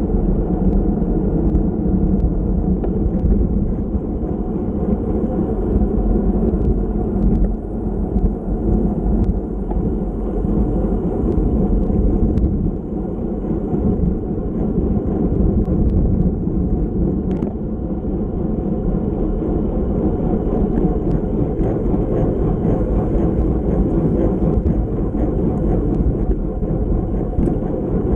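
Steady wind rush and road rumble from a bike-mounted action camera on a racing bicycle at speed, with a few faint ticks from the bike.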